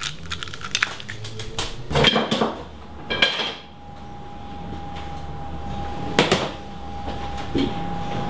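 Clinking and clattering of kitchenware being handled: a run of sharp clicks and knocks, with louder clatters about two and three seconds in and again near six seconds. A steady single high tone comes in about three seconds in and holds.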